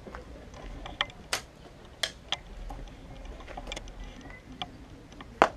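Airsoft gunfire: scattered sharp clicks and snaps at irregular intervals, about eight in all.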